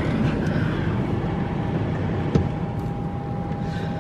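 Automatic car wash machinery running, heard from inside the car: a steady rumble and hiss, with a thin steady whine coming in about a second in and a single sharp click a little past halfway.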